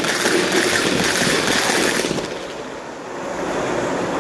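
Lionel Legacy Acela model passenger train speeding past close by: a steady rushing noise of its wheels on the track that falls away about two seconds in, leaving a fainter noise.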